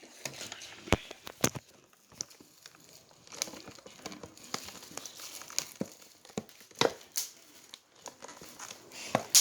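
Plastic packaging crinkling and tearing as it is handled and opened, with scattered sharp crackles and clicks.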